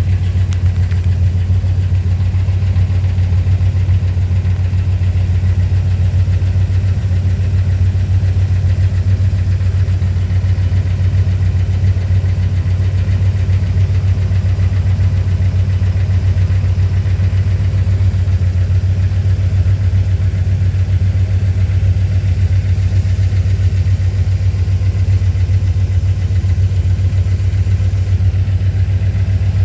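Chrysler Fifth Avenue engine idling steadily with a fast, even ticking, which the owner takes for a lifter tick and a leaking exhaust manifold gasket.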